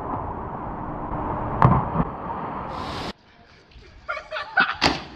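Sound of mistimed flip clips: a steady hiss with a sharp thud about one and a half seconds in, then after a sudden cut, short yelp-like voice sounds and a sharp smack near the end.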